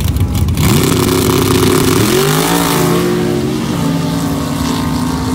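Dirt drag race buggy's engine launching hard and accelerating away down the dirt strip, its revs climbing about a second in and again about two seconds in, then holding steadier as it pulls away.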